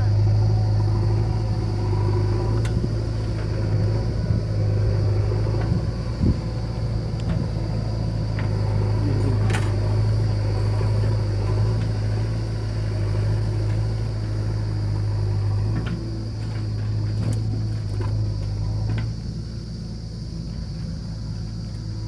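Diesel engines running steadily at idle: tractors waiting beside a JCB 3DX backhoe loader as it loads soil into a trolley. A knock comes about halfway through.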